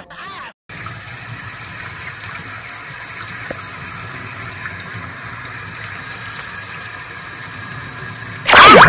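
Tap water running steadily from a sink faucet onto a puppy being bathed. Near the end a loud, high, voice-like sound begins, its pitch arching up and down.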